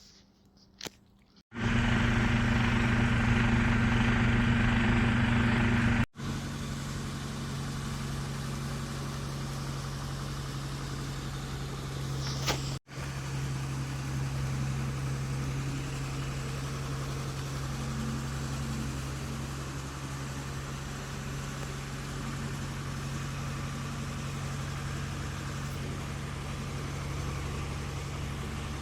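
An engine running steadily with a low pitched hum, split into three stretches by abrupt cuts. The first stretch, starting about a second and a half in, is louder than the rest. A brief high sweep comes just before the second cut.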